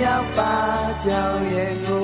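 Burmese pop song playing: a sung melody with held, sliding notes over instrumental backing.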